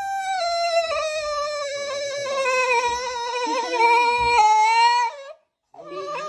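A dog howling in one long, wavering note that sinks and then rises, breaking off about five seconds in and starting up again just before the end.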